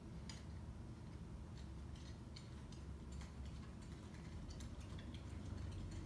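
Wind-driven snow ticking against window glass in a snowstorm: irregular faint ticks, several a second, over a low steady rumble of wind.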